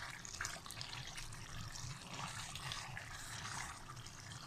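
Chicken and tomato masala sizzling and bubbling in the pot on a high flame, a steady crackling hiss, as it is fried down.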